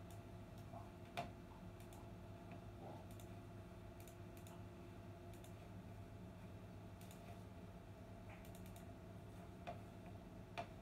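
Near silence: a steady faint hum with scattered faint clicks and ticks. The loudest click comes about a second in, with two more near the end.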